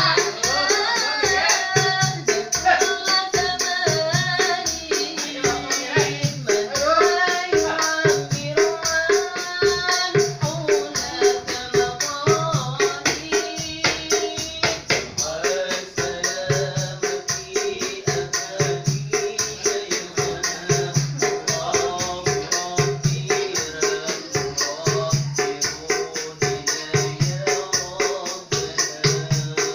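A man singing a sholawat, an Islamic devotional song, to a fast, steady jingling of hand percussion with metal jingles, with a low beat about once a second.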